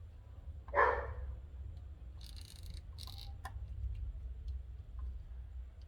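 Tinning a lithium battery cell with a soldering iron: two short hisses and a few faint clicks over a steady low hum. A short yelp-like call about a second in is the loudest sound.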